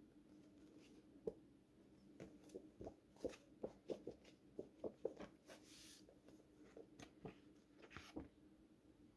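Faint handling sounds over a low steady hum: a quick run of small clicks and taps, then a couple of short rustles, as of books and packaging being handled.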